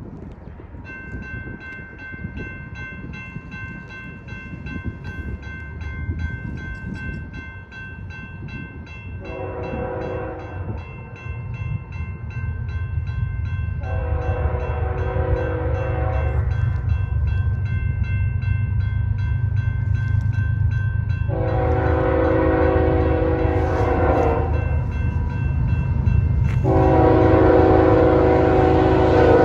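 A grade-crossing bell rings steadily as CSX #3084 leads a freight train toward the crossing, sounding its air horn in four long blasts. The locomotive's low engine rumble grows louder as it approaches.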